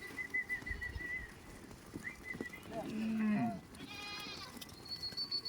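Goat bleating once, loudly, about three seconds in, with high, pulsing, trilled whistles before and after it.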